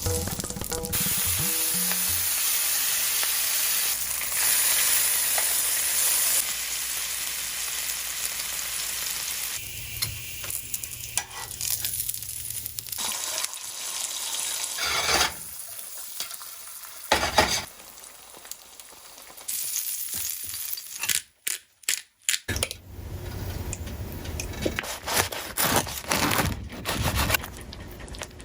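Taylor ham (pork roll) sizzling as it fries in a pan, in a series of short cuts with sharp knocks and scrapes of cooking between them.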